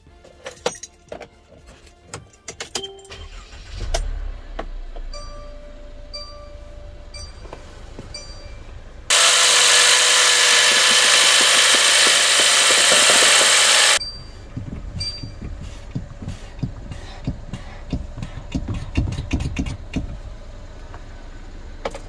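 Keys jangling in the ignition of a Mercedes Metris van, then the engine starting about four seconds in, followed by a short chime repeating for a few seconds. A loud, even hiss cuts in abruptly for about five seconds and stops just as suddenly, and the engine runs on with scattered clicks.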